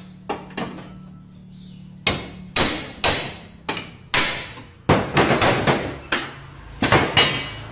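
Steel hammer striking a car's suspension arm to knock out its bushings: a series of sharp metal-on-metal blows in uneven groups, light at first and then about a dozen hard strikes from about two seconds in.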